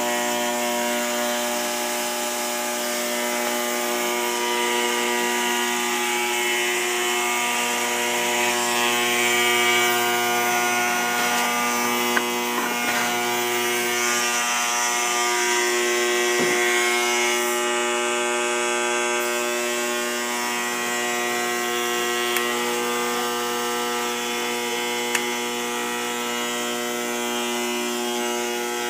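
Market Forge autoclave buzzing steadily from the top of the machine, an unbroken electrical buzz with a few faint clicks. The service company takes it as mostly the sign of a faulty timer, not the steam trap or the fast-exhaust solenoid valve.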